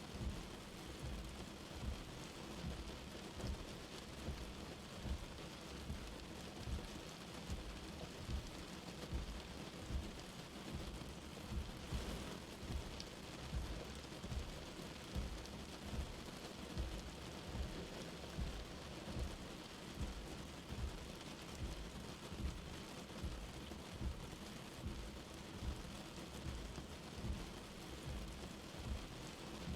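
Steady light rain falling on a surface, an even hiss with short low thuds about once a second.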